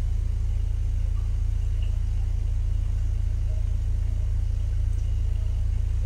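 Steady, deep low-pitched rumbling drone that holds an even level throughout, with a few faint short tones higher up: a dark ambient drone of the kind used as horror background.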